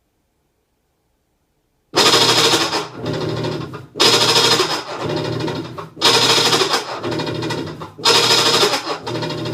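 Whirlpool top-load washing machine making a loud grinding noise in its wash cycle, starting suddenly about two seconds in and surging in a regular stroke about every two seconds.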